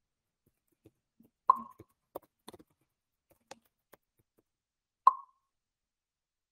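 Two short, sharp pops about three and a half seconds apart, with a scatter of faint clicks between them.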